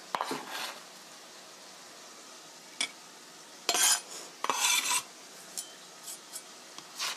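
Kitchen knife scraping and knocking on a plastic cutting board and a china plate as shredded cabbage is gathered and pushed onto the plate, in several short scraping bursts with a single click and a few light ticks between them.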